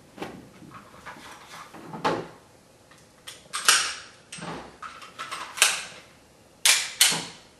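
HK USP Compact .45 pistol being handled, its slide worked: a string of sharp metallic clacks about a second apart, the loudest about halfway through and two close together near the end.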